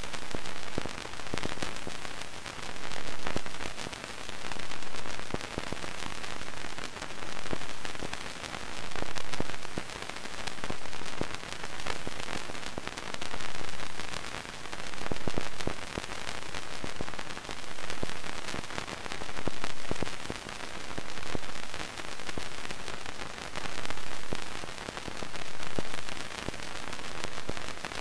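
Radio static: a steady crackling hiss that swells and fades about every second and a half, sprinkled with small clicks, like a walkie-talkie receiving no signal.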